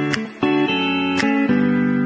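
Background music: plucked guitar notes with a sharp percussive click about once a second.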